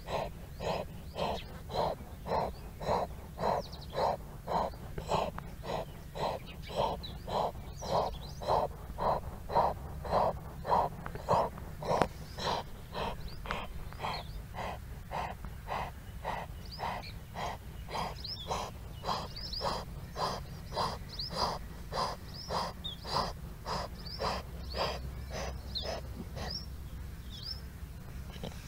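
Calf with severe drenching (aspiration) pneumonia breathing fast and laboured, a short noisy sound with every breath at about two breaths a second, steady and rhythmic and growing fainter near the end. The breathing distress comes from medicine drenched by the owner that went into its lungs.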